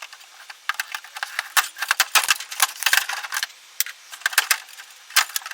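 Irregular sharp clicks and light rattles of parts being handled while a Samsung 46-inch LCD television is taken apart, dense in the middle of the stretch.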